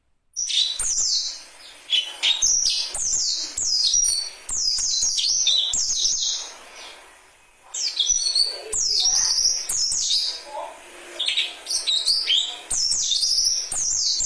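Birds calling: rapid runs of high, downward-sliding chirps, loud and dense, coming in bursts with short lulls between them.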